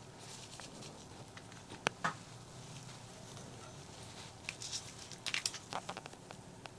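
Close-miked eating sounds: scattered crisp clicks and crunches of chewing. There are two sharp clicks about two seconds in and a quick cluster of them near the end.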